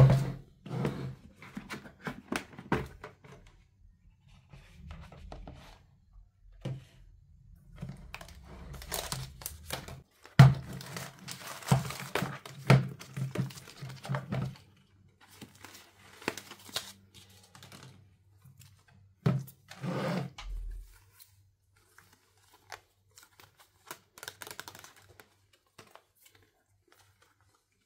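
Hands tearing and crinkling the wrapping of a Zuru Babycorn surprise toy capsule, with occasional knocks of hard plastic. The rustling thins to a few faint ticks over the last several seconds.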